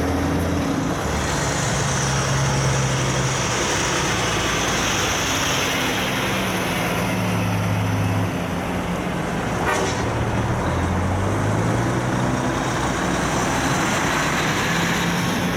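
Heavy diesel trucks, a Cummins-powered Kenworth, a Hino 700 tipper and a Mack, passing one after another at low speed in convoy. Their engine notes shift in pitch as each truck goes by, over steady tyre and road noise. There is a single sharp click about ten seconds in.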